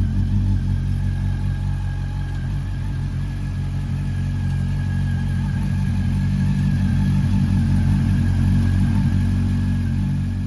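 Honda CB400 Super Four VTEC Revo's inline-four engine idling steadily through a Moriwaki aftermarket silencer.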